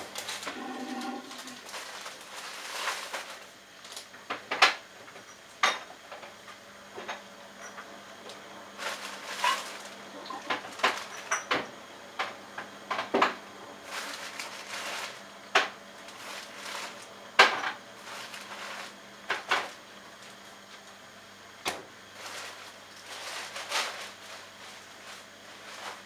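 Bosch Logixx washing machine in its inter spin, the drum turning with a steady low hum. Over it come irregular sharp knocks and clatter of pots, dishes and cupboard doors being handled, and these are the loudest sounds.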